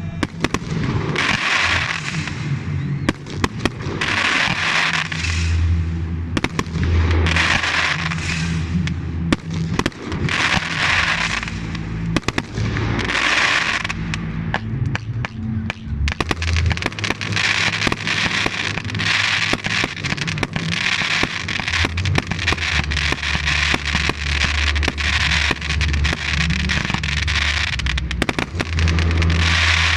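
Fireworks display: repeated bangs with crackling and hissing every few seconds, turning into a denser, near-continuous barrage of crackles and bangs from about halfway through.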